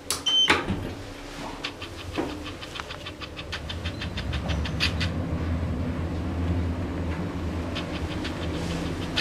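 An elevator car's floor button is pressed with a click and a short high beep. A quick run of ticking clicks follows, then the elevator's drive starts and the car travels with a steady low hum.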